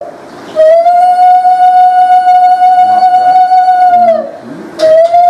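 Conch shell (shankha) blown in one long, steady, loud note that slides up into pitch, holds for about three and a half seconds and sags as the breath runs out, then is blown again near the end.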